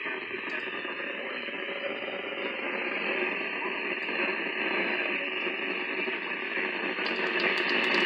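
A NOAA weather alarm-clock radio's small speaker hissing with static, growing a little louder. A few sharp clicks come near the end.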